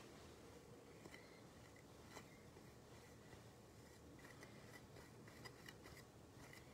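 Near silence, with a few faint scattered clicks and soft rubbing as a metal paten is wiped with a cloth over the chalice, the purification of the vessels after communion.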